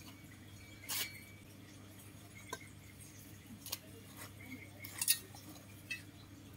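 Scattered light clinks and ticks, about half a dozen, some followed by a brief ringing tone like a small chime being struck.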